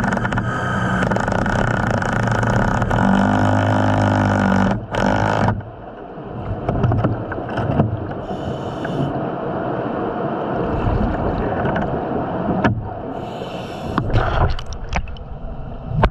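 Underwater recording: a steady mechanical hum with a pitched drone that cuts off about five and a half seconds in. It is followed by an uneven wash of water noise with scattered clicks and scrapes.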